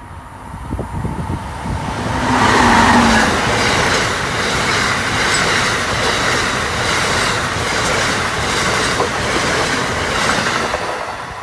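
Amtrak passenger train of Amfleet coaches passing at speed. The rush of wheel and air noise swells over the first two seconds or so, holds as a steady rumble with an even, repeating clatter of wheels, and eases off near the end.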